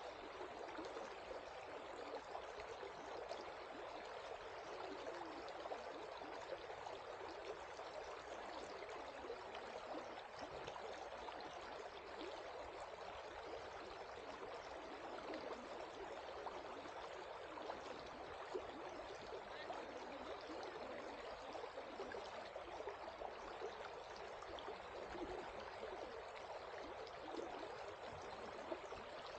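Shallow river water flowing steadily over rocks and stones.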